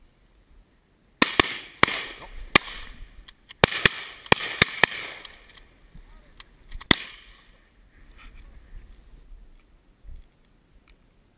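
A rapid volley of about ten shotgun shots over roughly six seconds, several close together, each echoing briefly. The last shot comes a couple of seconds after the rest.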